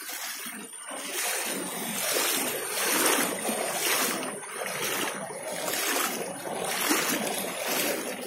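Legs wading through shin-deep floodwater, the water splashing with each stride, about once a second.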